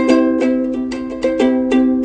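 Ukulele being strummed, chords ringing out in a quick, even pattern of several strums a second.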